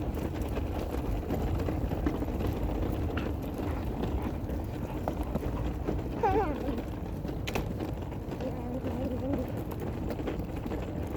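Steady low outdoor rumble with a few faint knocks, and a short wavering high call about six seconds in, with a fainter one near nine seconds.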